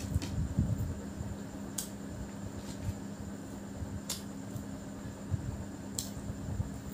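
Fingers squishing and mixing biryani rice by hand on a plate, with three short sharp clicks about two seconds apart, over a steady fan hum.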